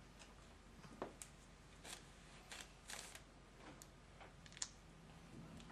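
Faint handling noise: scattered soft rustles and small clicks as gloved hands place an adhesive ECG electrode just above the ankle, over a low steady room hum.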